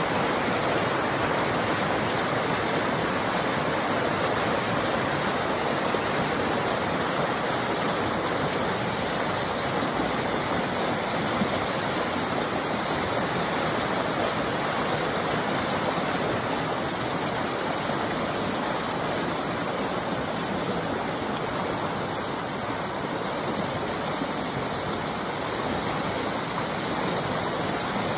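Creek water rushing over rocks and small cascades of whitewater: a steady, unbroken rush.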